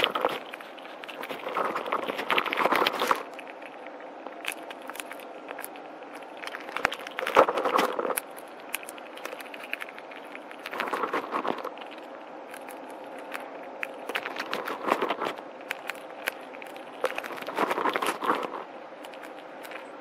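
Gray squirrel feeding on bird seed at a feeder: bursts of crunching and rustling every few seconds as it digs through and chews the seeds, over a faint steady hiss.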